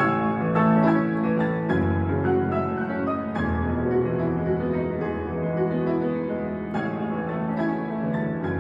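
Solo piano playing a slow, sad melody over sustained chords, the bass note changing about every second and a half.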